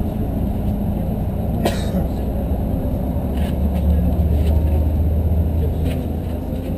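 City bus engine running and road noise heard from inside the passenger cabin while the bus drives, with a steady low hum that swells for a couple of seconds midway. A single sharp click sounds about two seconds in.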